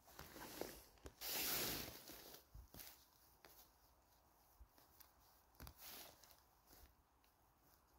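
Faint rustling and handling sounds of mushrooms being picked by hand from the forest floor, with one louder tearing rustle about a second in that lasts under a second.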